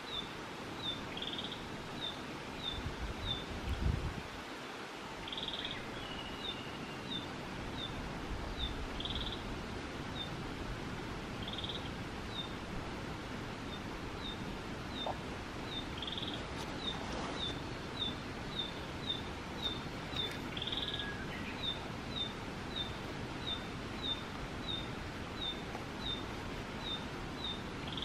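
Male narcissus flycatcher singing: brief high, whistled notes every few seconds, over a thin high note repeated about twice a second. A short low rumble comes about four seconds in.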